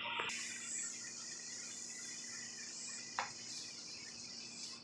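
Steady high-pitched chorus of night insects, with one sharp click about three seconds in.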